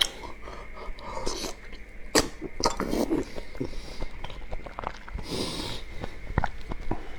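A person chewing seafood with open-mouthed eating sounds, with scattered short wet clicks and smacks.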